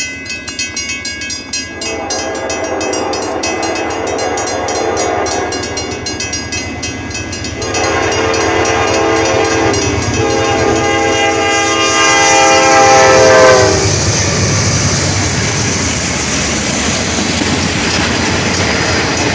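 Mechanical bells ringing rapidly at a railroad crossing while an approaching locomotive sounds its horn in long blasts, growing louder and sagging in pitch as it reaches the crossing about 13 seconds in. Then the steady rumble and clatter of the train passing.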